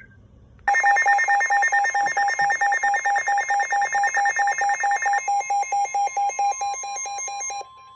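Weather alert radio's alarm beeping in a rapid, even pulse, starting about a second in, with a steady single-pitch tone, the NOAA Weather Radio warning alarm tone, coming in underneath about five seconds in: the signal that a new warning is about to be broadcast.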